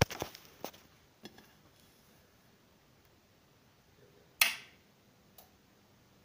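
A few knocks and clicks in the first second and a half, then about four and a half seconds in one loud, sharp click as the AM-500S amplifier's front-panel power switch is pressed and the amplifier turns on.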